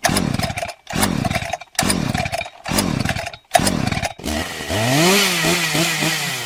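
Chainsaw-like noise: five short sputtering bursts about a second apart, each dropping in pitch, then from about four seconds in a continuous drone whose pitch wavers up and down.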